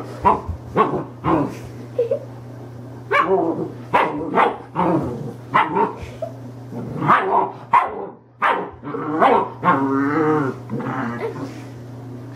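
German shepherd puppy barking at a cat: quick, sharp yaps in clusters with short pauses, the excited barking of a puppy inviting play.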